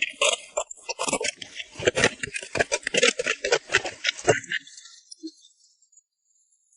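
A fast, irregular run of clattering knocks and rattles that stops abruptly about four seconds in.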